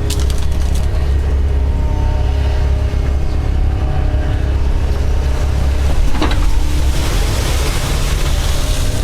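Doosan DX140 excavator's diesel engine running with a steady low drone. A sharp crack about six seconds in, then a louder hissing rush of noise over the last two seconds.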